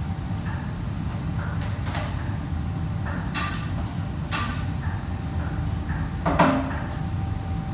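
Kitchen clatter: a handful of sharp knocks and clanks of kitchenware, the loudest about six seconds in with a brief metallic ring, over a steady low background rumble.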